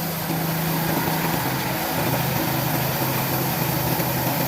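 Engine of a wood-cutting machine running steadily, with an even low hum and no cutting under way.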